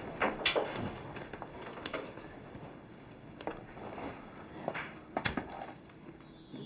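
A few scattered soft taps and knocks over quiet room tone: footsteps on a hard office floor, then a card folder and a cardboard shoe box being handled on a desk.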